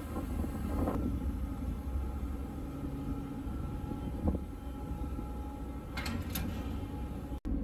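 Steady low rumble of heavy harbour machinery, the crane or ship's engines, with a faint hum and two brief clicks about six seconds in.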